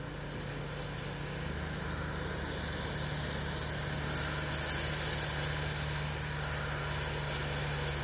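A child's mini motorbike engine running steadily at low speed, its hum holding one pitch and growing slightly louder as the bike comes closer.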